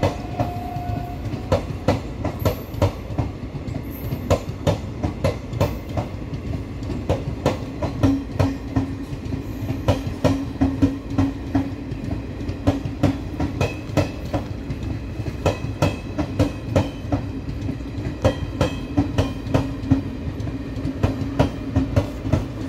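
Indian Railways passenger coaches rolling past at speed, their wheels clicking rapidly and repeatedly over the track above a steady rumble and hum.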